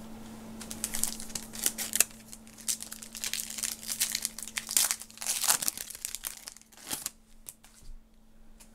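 Trading-card pack wrapper being torn open and crinkled by hand, a run of crackles that dies down about seven seconds in.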